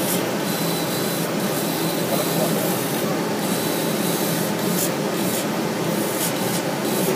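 Laser cutting machine running as it cuts leather: a steady rushing hiss of air-assist and extraction, with a faint high whine that comes and goes.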